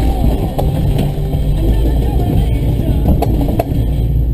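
Off-road vehicle running: a loud, steady low rumble, with a couple of sharp knocks a little after three seconds in.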